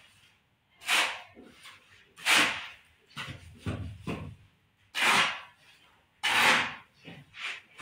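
Wet cement mortar being scooped with a trowel and flung by hand onto a brick wall: a series of short, sharp splats and scrapes, the loudest about every second and a half.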